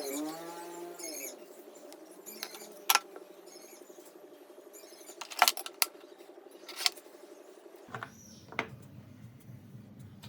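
A small power tool's motor winding down, its pitch falling over the first second. A faint steady hum follows, with a few sharp clicks and taps from handling the tool and the wooden workpiece.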